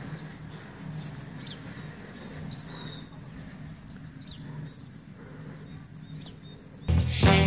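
Outdoor ambience: a low steady hum with a few short, high bird chirps. Upbeat swing music cuts in abruptly just before the end.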